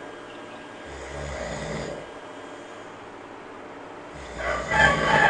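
A monkey snoring: a softer snore about a second in, then a louder, longer one starting about four seconds in.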